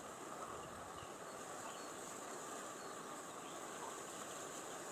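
Steady outdoor ambience of distant wildlife chorus, with a few faint, short bird chirps.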